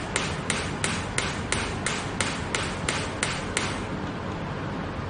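The small handles of an electromagnetic muscle stimulator (EMS body-sculpting machine) are clicking with each magnetic pulse, about three sharp ticks a second, a sign that the machine is delivering its output. The ticks stop suddenly about three and a half seconds in, leaving a steady low hum.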